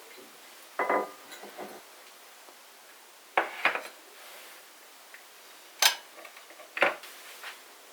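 Kitchenware clattering: dishes or utensils set down and knocked together in a handful of separate clinks spread over several seconds.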